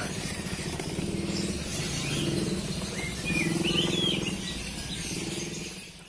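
Small birds chirping a few short times around the middle, over a low, steady engine hum.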